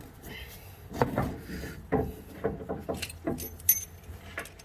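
Metal hand tools clinking and knocking as a spanner is worked on the brake hose fitting of a disc brake caliper: a string of irregular clicks, with a few high, ringing metallic taps near the end.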